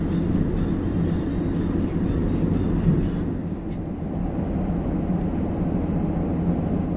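Maruti Suzuki Swift running at highway speed, heard from inside the car: a steady low rumble of tyres on the road and engine.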